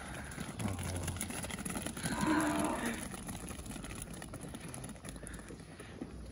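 Khillari cattle mooing: two moos, a short low one about half a second in and a louder, longer one around two seconds in.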